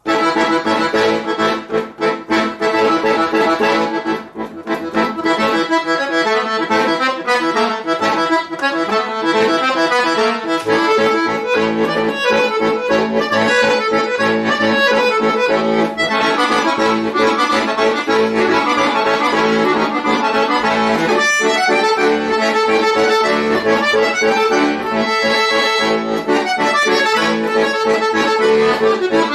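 Solo chromatic button accordion, starting a piece suddenly with loud, separated chords in the first few seconds, then running on in fast, dense passages over held notes.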